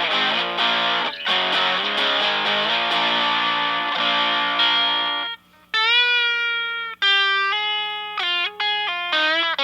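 Fender Stratocaster played through a Distortion Bender fuzz/distortion pedal into a Fender Blues Junior amp. It starts with about five seconds of gritty, distorted chords, then after a brief break moves to clearer single-note lead phrases, starting with a bent note.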